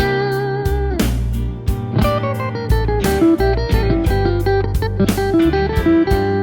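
Electric guitar playing a blues phrase through a Line 6 DT-25 amp set to a Fender Twin preamp tone. Sustained single notes waver with vibrato and slide in pitch, with a strummed chord about a second in.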